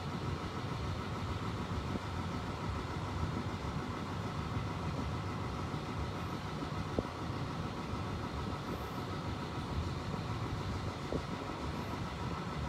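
Steady low rumble of vehicle noise, with a couple of faint clicks about halfway through and near the end.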